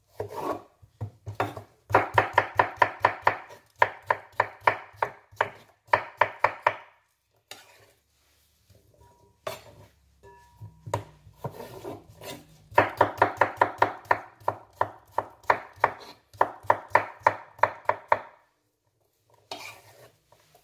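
Knife chopping cucumber on a wooden chopping board in quick, even runs of strikes, about six a second. The chopping pauses for a few seconds near the middle, then starts again.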